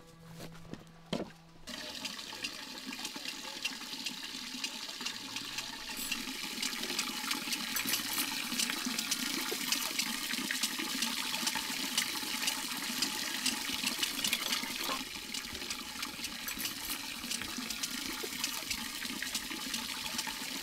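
Steady rush of running water with fine splashing, setting in about two seconds in and growing fuller about six seconds in.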